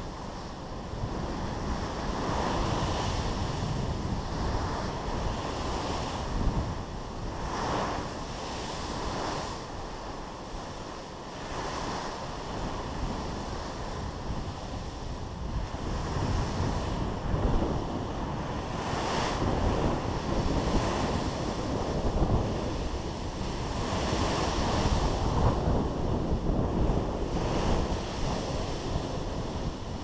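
Seawater rushing and breaking against a moving cruise ship's hull, swelling and easing every few seconds, with wind buffeting the microphone.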